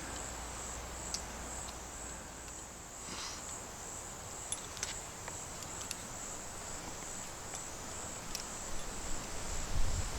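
Insect chorus, a steady high-pitched trill that holds throughout, with a few faint ticks scattered through it.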